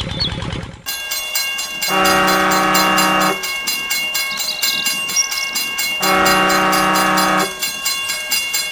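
Train horn blowing two long blasts over a steady, fast clickety-clack of wheels on rail joints.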